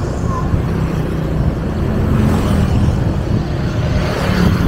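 Honda PCX scooter on the move: a steady engine hum under loud wind and road noise.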